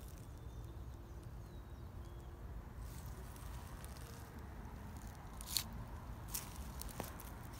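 Footsteps crunching on dry fallen leaves and grass, with two sharper crunches near the end, over a low steady rumble.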